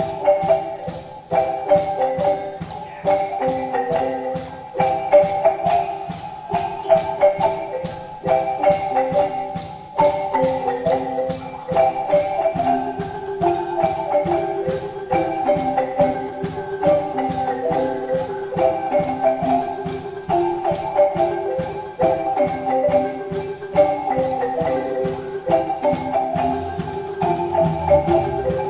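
Marimba ensemble playing: several wooden-keyed marimbas with tube resonators struck with mallets in a fast, steady rhythm, repeating an interlocking melodic pattern over a bass line. Deeper bass notes join near the end.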